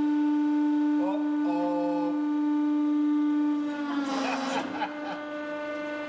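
Hydraulic press's pump running with a steady whine. About four seconds in, as the ram squashes the clay figure, the whine sags in pitch under load and a short burst of noise is heard.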